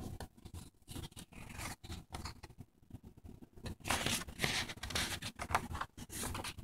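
Paper sketchbook pages being handled and turned, with a louder stretch of rustling and scraping about four seconds in.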